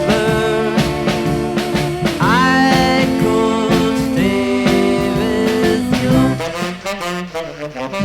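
1960s school beat band playing, recorded dry without reverb: a saxophone carries sustained melody notes with upward scoops over organ chords, bass guitar and drums. Near the end the playing breaks into short, choppy chords.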